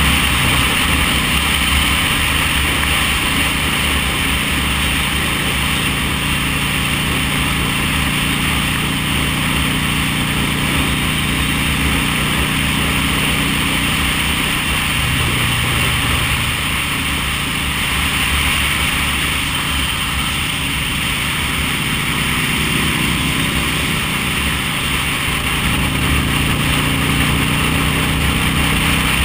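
V-twin cruiser motorcycle engine running at cruising speed on the open road, with wind rushing over the microphone. The engine note shifts about halfway through, eases off for a few seconds near the end, then picks back up.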